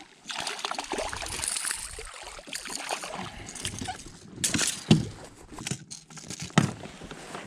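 Water splashing and dripping beside a kayak, with a few sharp knocks on the hull.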